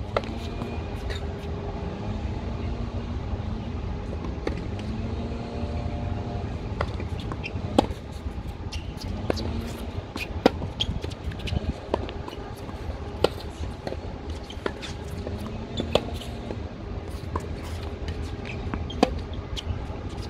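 A tennis rally: a ball struck by racquets and bouncing on a hard court, sharp hits about every second and a half, over a steady low rumble.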